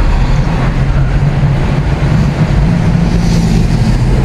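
Car interior noise while driving: steady road and engine rumble with a low, even hum.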